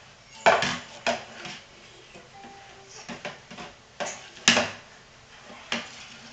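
Plastic baby bottle knocking and clattering on a wooden coffee table: about seven sharp knocks at irregular intervals, the loudest about half a second in and about four and a half seconds in.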